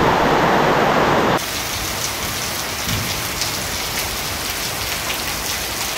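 Heavy rain pouring down steadily. About a second and a half in, the sound changes abruptly to a slightly quieter steady downpour.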